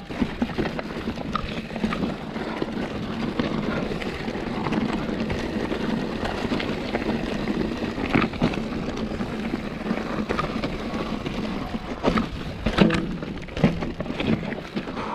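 Mountain bike on a rough, rocky trail: tyres rumbling over stones and the bike rattling steadily, with a couple of sharper knocks near the end.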